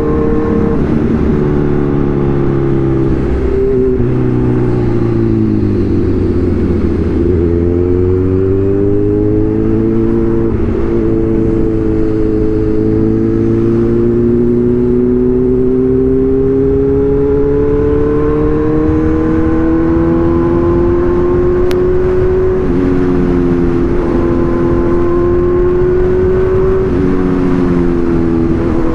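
Kawasaki Z1000's inline-four engine and exhaust under way, the revs dipping and then climbing slowly, with brief drops in pitch at gear changes a few times.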